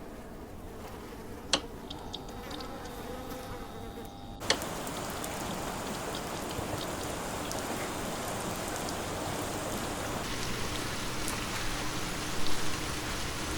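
A faint steady hum with one sharp tick, then, about four and a half seconds in, steady rain starts abruptly, as if at a cut, and keeps falling.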